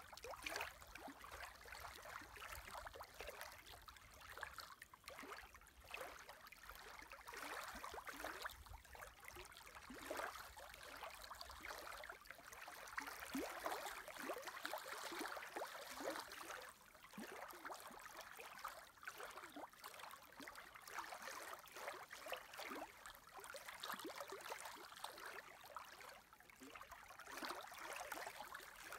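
Small wind-driven lake waves lapping and splashing close by, a continuous run of many short, irregular splashes. A low rumble of wind on the microphone runs under it in the first half.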